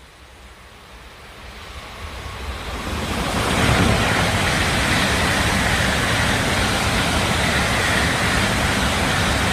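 Shinkansen bullet train passing straight through the station at high speed: a rushing noise that swells over the first three to four seconds as it approaches, then holds loud and steady as the long train of cars sweeps past.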